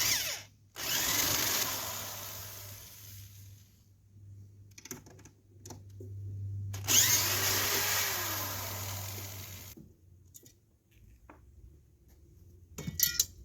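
Cordless drill driving screws out of a door latch bracket, running in two bursts of about three seconds each, with a few small clicks and knocks between and after.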